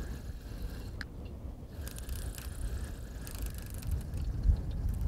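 Wind buffeting the microphone: a low rumble that gusts harder near the end, with a few faint clicks above it.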